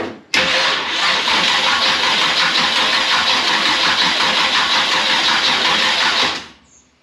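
Starter cranking the Chevrolet V8 of a 1981 Camaro Z28 for about six seconds without it firing, then stopping abruptly. The engine has sat for months and is being spun over to draw fuel through the filter into the carburettor.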